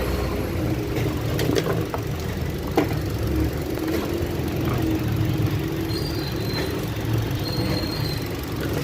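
Hyundai Accent engine idling steadily with the hood open, its AC compressor not engaging, with a couple of light clicks from handling in the engine bay.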